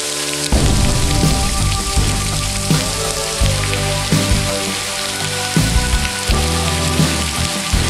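Steady rain falling, with background music of low held notes and chords that change every second or so.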